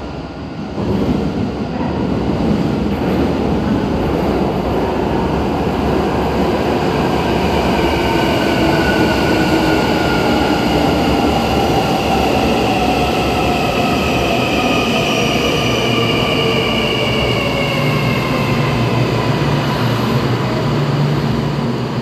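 Kintetsu 80000 series Hinotori limited express pulling into an underground station platform. Its running noise swells about a second in, and whining tones fall slowly in pitch as the train slows down.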